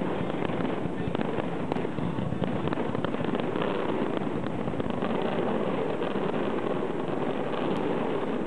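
Fireworks going off in a dense, unbroken crackle of rapid small bangs that keeps an even loudness throughout.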